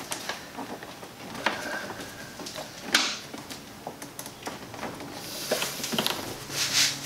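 Gloved hands working a plastic fuel-line quick-connect fitting: scattered rustling and small plastic clicks, with one sharp click about three seconds in and a hiss that builds near the end.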